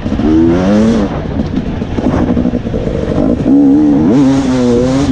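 Dirt bike engine heard from on the bike, revving up and falling back again and again as the rider accelerates and backs off over the rough track. A quick sharp rise and fall in pitch comes about three seconds in, then it holds high revs.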